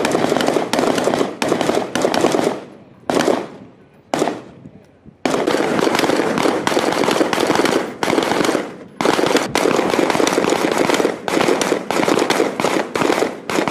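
Rapid rifle fire from several 5.56 mm rifles (M4-type carbines and a scoped Heckler & Koch M27-pattern rifle) firing at once, the shots overlapping into dense strings. There are short breaks about three to five seconds in and again near nine seconds.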